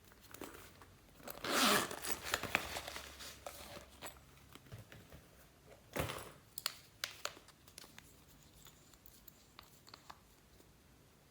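Glossy slime being stretched and pressed by hand, giving crackling, tearing and popping sounds in two main bursts, a little after the start and again about six seconds in, then fading to scattered small crackles.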